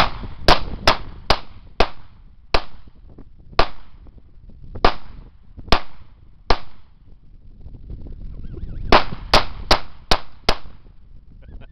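Two .40 S&W pistols, a Smith & Wesson SW40VE and a Glock 22, fired one in each hand: about fourteen sharp shots, each with a short echo. A quick string slows to about one shot a second, then after a pause of about two seconds comes a fast burst of five near the end.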